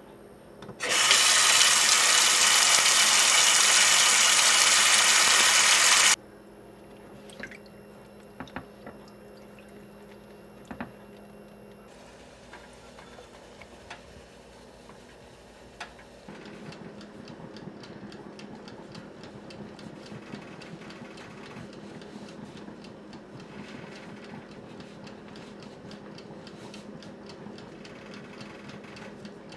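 Tap water running into a stainless steel pot in a sink for about five seconds, then stopping abruptly. After that come a few scattered clicks and a quieter steady hiss.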